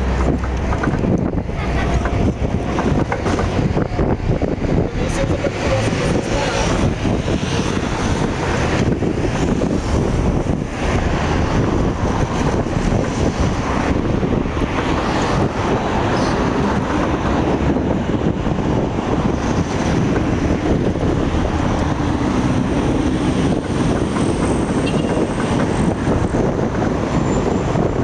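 Steady wind rumbling on the microphone, mixed with the noise of road traffic.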